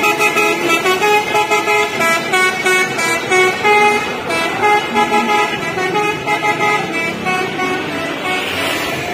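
Multi-tone 'telolet' bus horn playing a melody, its held notes stepping to a new pitch every fraction of a second.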